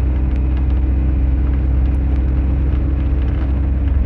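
A car driving along a road, heard from inside the cabin: a steady, heavy low rumble of road and engine noise with a constant hum.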